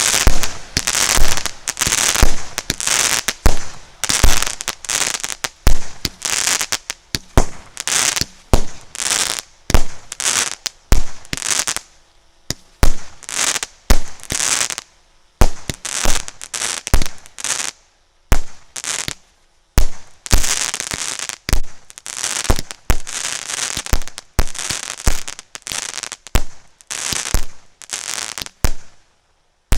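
A 100-shot, 0.6-inch firework cake (Vysota battery) firing a rapid sequence of shots, about two a second, each a sharp bang, many trailed by a crackling burst. There are a few short pauses partway through.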